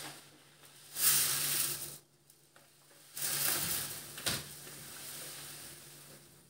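Coarse dishwasher salt poured through a funnel into a dishwasher's salt reservoir: two grainy pours, the first about a second long, the second starting about three seconds in and trailing off slowly, with a sharp knock during it.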